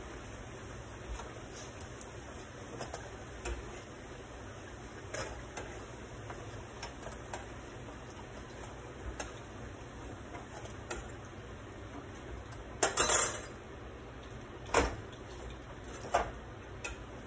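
A metal utensil clinks against a frying pan and plate as fried plantain slices (tostones) are lifted out of hot oil. The small clicks are scattered, with a louder clatter about thirteen seconds in and two more knocks shortly after, over a steady low hiss of frying.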